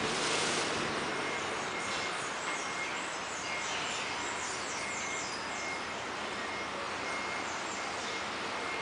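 Steady outdoor background hiss with faint, high chirps of small birds, a run of them through the middle.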